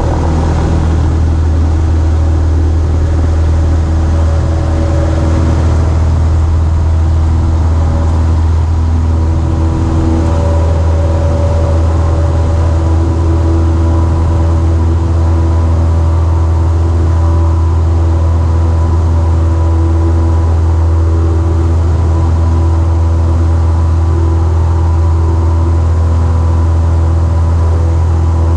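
Single-engine light airplane's piston engine and propeller, heard from inside the cockpit, running steadily at full power through the takeoff roll and climb-out.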